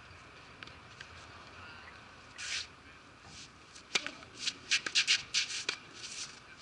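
A tennis serve: a sharp crack of racket on ball about four seconds in, followed by a quick run of scuffing, scraping footsteps on the court surface as the server rushes forward, with another racket-on-ball strike a little later.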